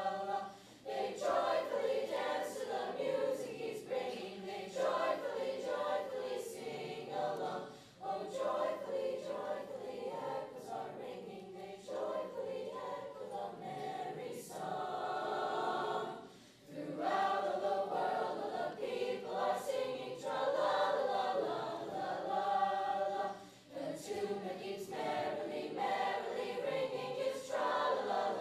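Eighth-grade mixed choir of boys' and girls' voices singing a choral piece, in phrases of several seconds with brief breaks between them.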